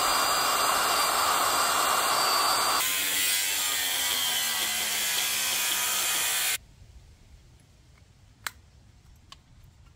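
Corded electric drill with a steady high whine drilling out spot welds in a steel car-body panel, then an angle grinder grinding the same metal, cutting off abruptly about six and a half seconds in. After that it is quiet, with a couple of small clicks near the end.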